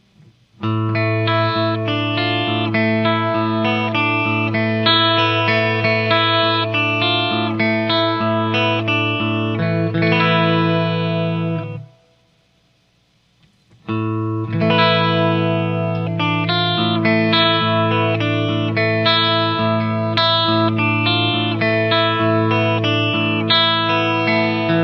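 Les Paul Custom electric guitar played through a Boss ME-50's chorus effect into Marshall amps: ringing notes over a held low note. The playing stops about twelve seconds in and starts again two seconds later.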